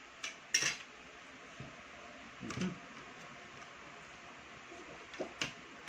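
Eating sounds at a table: a few short, sharp clicks and taps, with a small cluster about two and a half seconds in, over a faint steady hiss.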